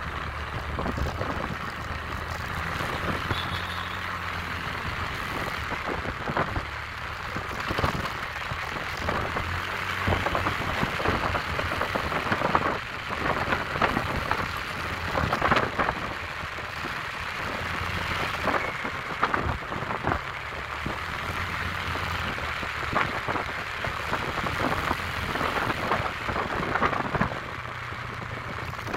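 Wind buffeting the phone's microphone on a moving Honda Click 125i scooter, a gusty rushing noise with many sudden peaks, over the scooter's low, steady engine hum.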